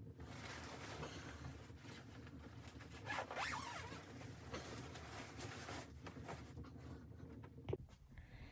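A zipper being pulled in several long rasping drags, the loudest about three seconds in, with a sharp click near the end.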